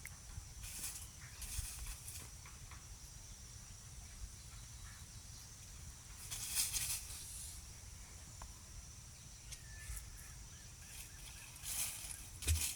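Insects trilling steadily, with a few short hissing bursts: about a second in, twice more around six and seven seconds in, and near the end. A low rumble runs underneath.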